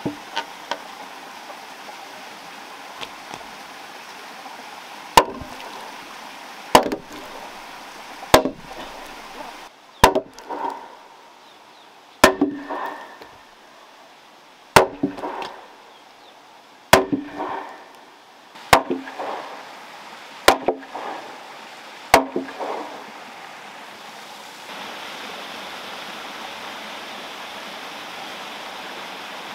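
Heavy wooden knocks, about ten of them, each a second and a half to two and a half seconds apart, with a short hollow ring after each: a squared timber post being knocked down into the mortise of a hewn beam.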